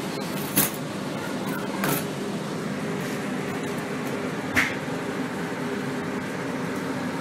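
Steady mechanical hum of a machine running. Three sharp taps sound over it, about half a second, two seconds and four and a half seconds in.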